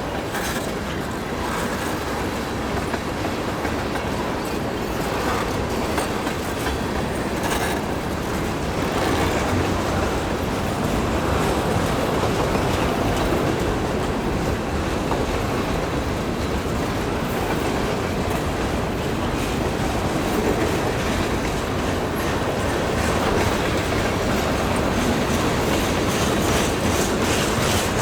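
Freight train rolling by at steady speed, its steel wheels clicking over the rail joints; the sound builds slightly louder as it goes.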